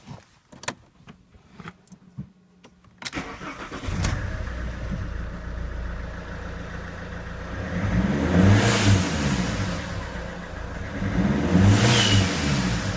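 Alfa Romeo GT's 1.9 JTDM turbodiesel engine starting after a few clicks about three seconds in, idling, then revved twice. Each rev brings a loud whooshing hiss from a massive boost leak at the lower turbo hose.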